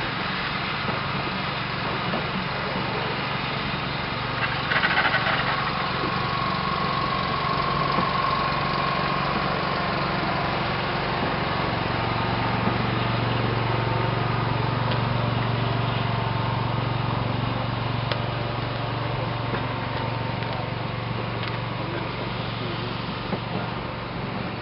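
Train of passenger coaches rolling past on the track, a steady rumble with a low hum that grows louder about halfway through. A thin high whine comes in about six seconds in and fades a few seconds later.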